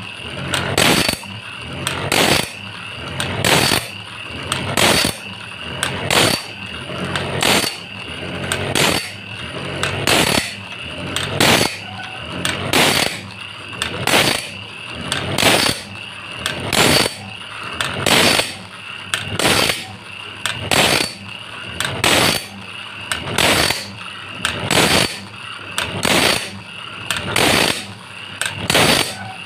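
Homemade automatic band-saw blade sharpener running through its cycle. An electric motor's grinding wheel dips onto one saw tooth about every one and a half seconds while a crank-driven pawl steps the blade on. Each cycle swells to a loud grinding stroke over a steady motor whine.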